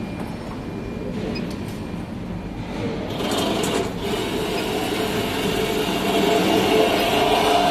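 CNC double-head cutting saw running, a steady mechanical noise. About three seconds in, a steady hum with several pitches and a higher hiss join, and the sound grows louder toward the end.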